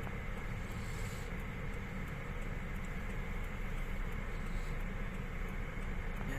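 Steady engine and tyre noise of a car driving through snow, heard from inside the cabin as an even low rumble.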